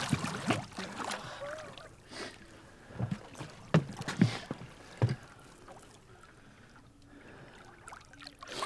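A lake sturgeon splashing at the surface as it is released over the side of an aluminum boat: several short splashes and knocks of water against the hull over the first five seconds, then quieter lapping.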